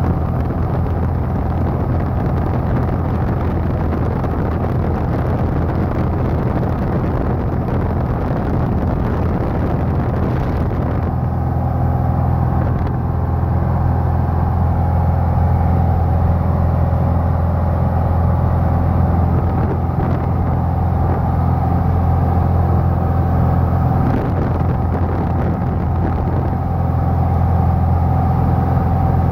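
Light airplane's piston engine and propeller running steadily at cruise, heard inside the cockpit as a loud, even drone. Its tone shifts slightly about eleven seconds in.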